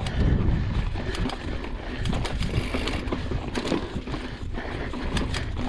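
Mountain bike rolling over rocky, stony ground: tyres crunching on stones, with irregular clicks and knocks from the bike rattling over the rocks, over a steady low rumble.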